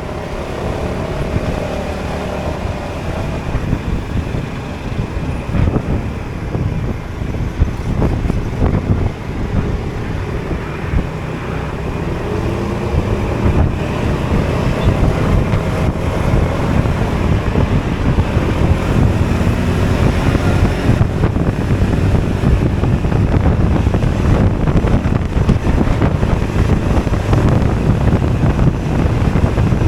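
Honda Forza 250 scooter's single-cylinder engine running while riding, its note drifting up and down under heavy wind buffeting on the microphone. The wind and road noise grow louder about halfway through.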